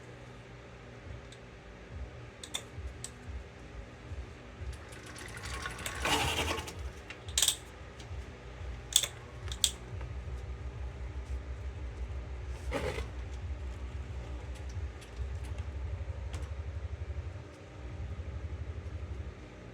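Motorized bicycle engine being turned over in an attempt to start it: a fast, low mechanical pulsing, broken by scattered clicks and a clatter about six seconds in.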